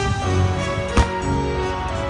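Music with held chords, and one sharp bang about a second in.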